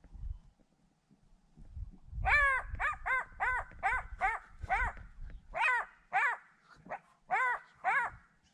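Black-backed jackal giving its alarm call: a run of short yelps, each falling in pitch, about two a second with one brief pause, starting about two seconds in. This repeated yelping is the call jackals give when lions are close.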